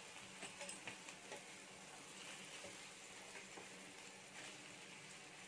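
Marinated chicken leg pieces sizzling faintly in a grill pan over a low flame, with a few light clicks scattered through.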